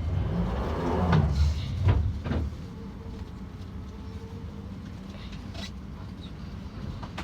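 Sliding doors of a London Underground 2009 Stock train closing, with a rumble and several thuds over the first two and a half seconds, then a steady low hum in the carriage.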